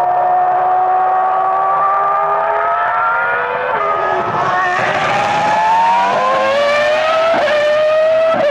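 A 2004 Formula One car's 3.0-litre V10 engine at high revs, a single high-pitched note. Around four seconds in the note drops and breaks up as the car comes through a corner, then climbs steadily as it accelerates away, with quick upshifts heard as brief breaks near the end.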